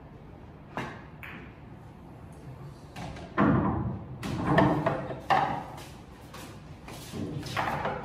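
A pool shot: a sharp click of the cue tip on the cue ball about a second in, followed at once by a click of ball on ball. From about three seconds in come louder, irregular thuds and clacks of the balls.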